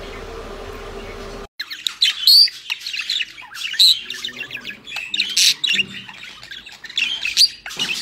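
A steady hum runs until about a second and a half in, then cuts off abruptly. English exhibition budgerigars then take over, chattering and squawking in quick, high, overlapping calls.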